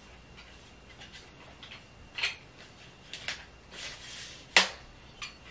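Irregular clicks, knocks and short scrapes from a telescoping phone tripod and selfie stick as it is unlocked and its pole sections are pulled out, with a sharp click about four and a half seconds in.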